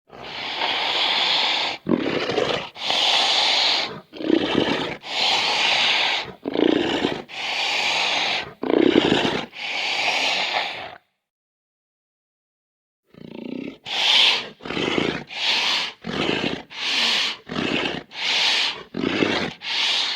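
Cartoon kaiju monster roar sound effects: a run of six long, harsh roars one after another, a silence of about two seconds, then a faster series of shorter roars, about one a second.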